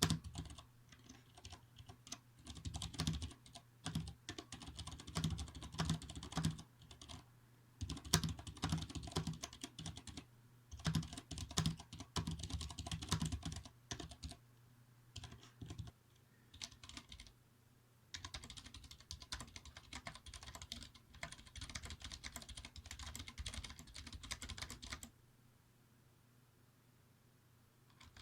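Typing on a Vortex Race 3 mechanical keyboard with Cherry MX Clear switches: rapid runs of key clicks and clacks in bursts with short pauses. The typing drops away near the end.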